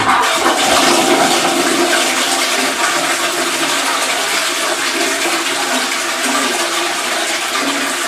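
Close-coupled flush toilet flushing: a loud, steady rush of water from the cistern through the bowl and down the drain, which comes in suddenly as the handle is pushed.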